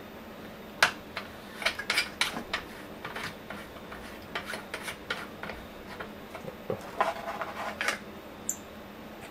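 Microscope ring-light adapter being handled and twisted on the lens barrel, then taken off: irregular light clicks and scrapes of hard parts, with a quick run of clicks about seven seconds in.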